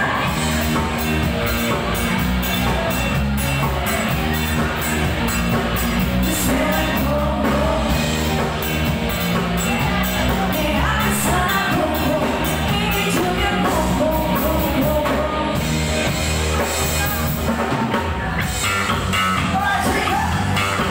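Live band playing an upbeat rock-pop song: drum kit, electric guitars and keyboard under sung vocals.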